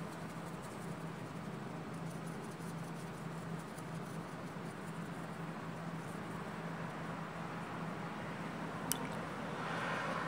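Faint strokes of a watercolour brush on paper over a steady low hum and hiss, with a single sharp click about nine seconds in and a slightly louder stroke near the end.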